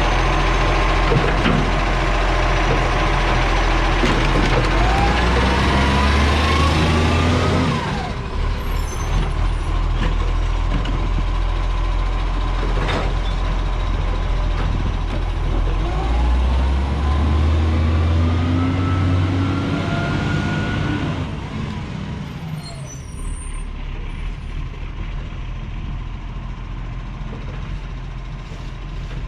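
Garbage truck's diesel engine running, revving up twice for a few seconds each, then settling to a lower, quieter run near the end.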